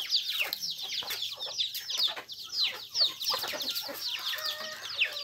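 A brood of chicks peeping non-stop in short, high, falling chirps, several a second, with a hen's lower call joining in about four seconds in.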